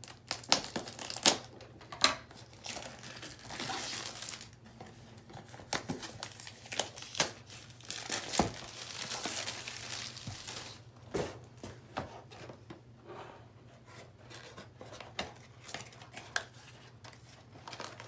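Packaging being unwrapped by hand: clear plastic wrap crinkling and tearing, with sharp taps and knocks of a cardboard kit box being handled and opened.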